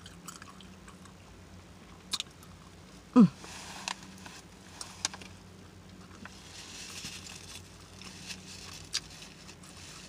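Close-up open-mouthed chewing and smacking of a fish sub on a soft roll, with scattered wet lip and mouth clicks. About three seconds in comes a short vocal hum that falls in pitch.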